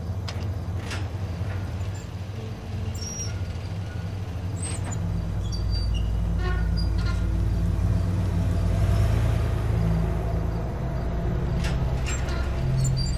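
Car engine running, a steady low rumble that grows louder about five seconds in, with a few faint high clicks and chirps above it.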